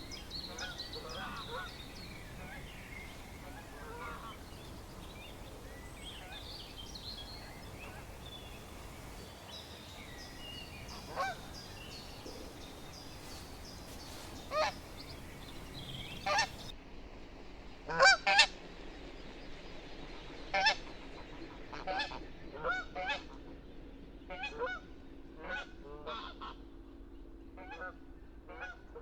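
Canada geese honking. At first the honks are single and come a few seconds apart, the loudest pair lands about 18 seconds in, and a run of quicker, fainter honks follows near the end. Fainter, higher calls are heard in the first ten seconds or so.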